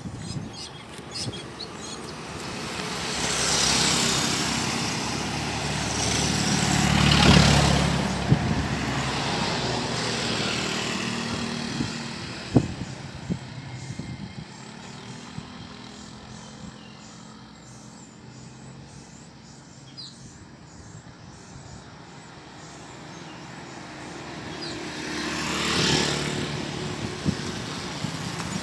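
Road traffic passing on the bridge roadway close by, each vehicle swelling and fading. Several pass in the first ten seconds, the loudest about seven seconds in, and another passes near the end. A few sharp clicks come around the middle.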